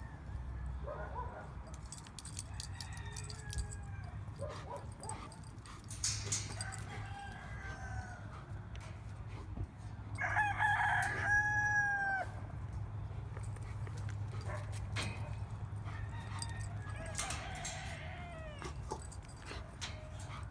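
A rooster crowing loudly once about ten seconds in, its held note dropping at the end, with softer crows and clucks from chickens before and after it. Scattered light clicks run through.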